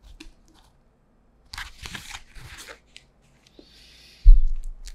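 Pages and cover of a hardbound Bible rustling and scraping as it is handled and lowered, then a deep thump near the end.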